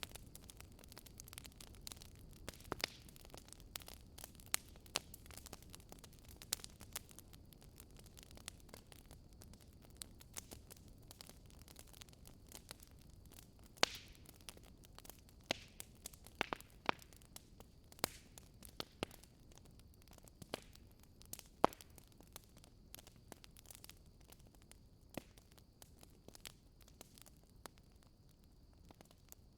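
Wood fire crackling in a fireplace: irregular sharp pops and snaps, several a second, over a soft low rumble.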